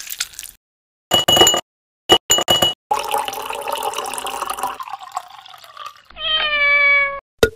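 Strawberries mashed with a metal muddler in a glass, then ice cubes clinking into the glass with a ringing note, followed by milk pouring steadily over the ice. Near the end a single cat meow, sliding slightly down in pitch, lasting about a second.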